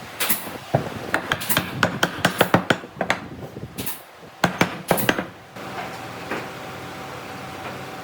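A quick, irregular run of sharp knocks and taps from workshop tools striking, about a dozen strikes, stopping about five and a half seconds in; after that only a steady hum with a faint high tone is left.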